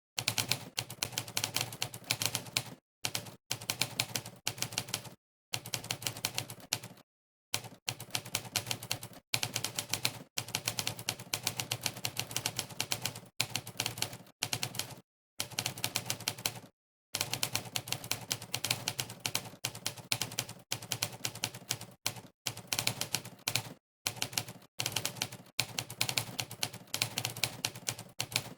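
Monkeytype's typewriter key-sound effect: rapid runs of typewriter keystroke clicks, several a second, played for each key pressed. The runs break off into brief gaps of complete silence every second or two.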